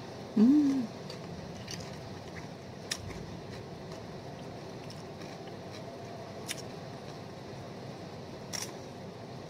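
Person eating raw cucumber slices. A short hummed "mm" rising and falling in pitch about half a second in, then a few scattered sharp crunches and mouth clicks of chewing.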